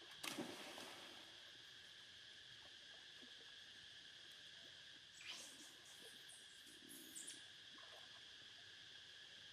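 Monkeys swimming in shallow water: a splash just after the start and another about five seconds in, with a few faint high chirps near seven seconds. Under it all runs a steady drone of insects.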